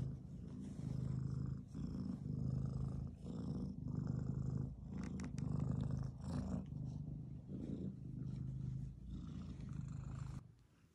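Domestic cat purring steadily while being stroked, the purr pulsing with each breath about once a second, a sign of contentment. It stops shortly before the end.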